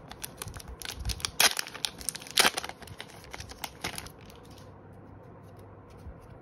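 Foil trading-card booster pack being torn open and crinkled by hand, with two louder sharp rips about one and a half and two and a half seconds in. The crackling dies away after about four seconds.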